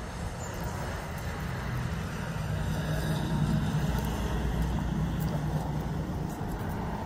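Low rumble of a motor vehicle's engine running, growing louder about three seconds in and then holding steady.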